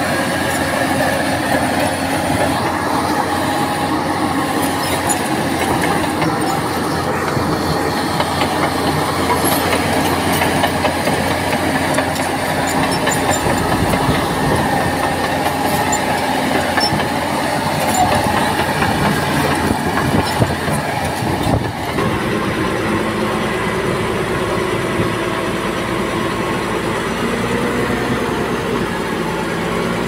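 Crawler bulldozer working: diesel engine running steadily under load with the clanking of its steel tracks. The sound shifts abruptly about two-thirds of the way through.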